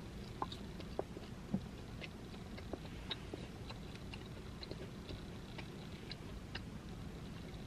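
Quiet chewing of a mouthful of pecan pie cake: scattered small, sharp mouth clicks, a few louder ones in the first couple of seconds, over a low steady hum.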